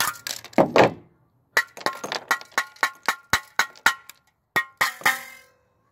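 Hammer knocking the cement filling out of a weighted sterling silver candlestick: a crunch of breaking cement, then a quick run of about a dozen sharp, ringing metal strikes, and two more near the end.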